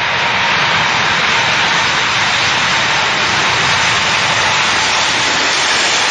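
Airbus A380's four jet engines running loud and steady as it rolls along a wet runway throwing up spray: an even rushing noise that holds without any change in pitch.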